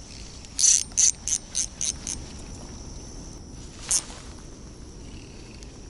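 Fishing reel giving a quick run of six ratcheting clicks, each fainter than the last, then a single click about three seconds later. Insects hum steadily underneath.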